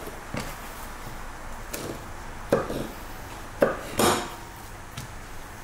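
Kitchen knife knocking against a wooden cutting board as small cuts are made in the edges of a raw pork cutlet: a few sharp knocks, the three loudest coming close together between about two and a half and four seconds in.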